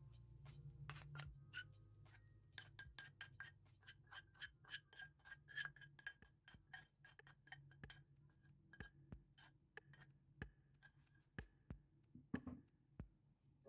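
Quiet tapping and scraping of a wooden spoon in a small saucepan as fried scallions and oil are scraped out into a glass bowl of batter, with light clinks. A quick run of taps, about three or four a second, fills the middle, and a few louder knocks come near the end.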